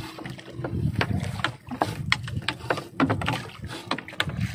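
Irregular sharp knocks and clatter aboard a small fishing boat, over a low steady rumble.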